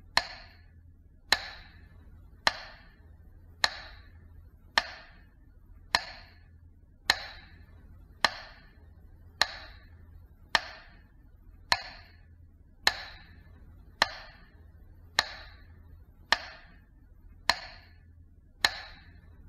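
Slow metronome beats for a Minute of Silence: a single sharp click with a short ring a little over once a second, evenly spaced, over a faint low hum.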